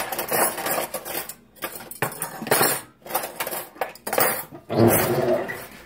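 A metal fork scraping and clinking against a plate in repeated short strokes as food is scooped up. A short low hum of a voice comes about five seconds in.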